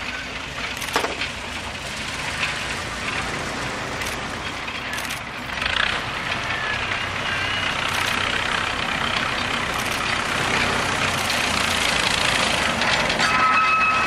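Narrow-gauge log train drawn by a small diesel locomotive, with the engine and the rumble of the log wagons growing louder as it passes close by, and scattered clicks. A brief, steady high-pitched squeal comes near the end.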